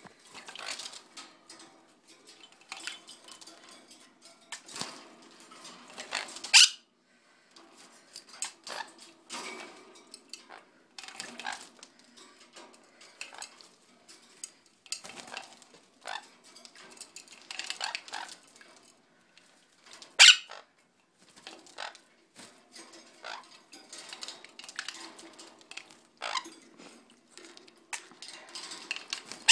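Sun conure and a green parrot bathing in a clip-on plastic bird bath in their cage: irregular splashing and clattering of the plastic bath against the cage wire, broken by a few short, loud squawks.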